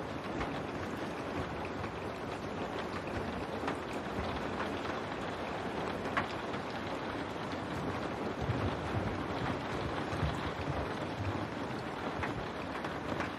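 Steady rain on window glass: a continuous hiss with scattered sharper drop ticks. A low rumble swells in about eight seconds in and fades a few seconds later.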